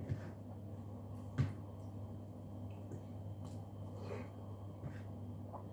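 Quiet sounds of eating by hand: soft clicks and squishy mouth noises, with one sharper click about a second and a half in, over a steady low hum.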